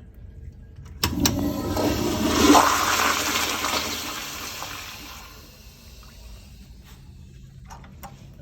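Crane Whirlton toilet flushing: a sharp click about a second in, then a loud rush of water that peaks and dies away over about four seconds.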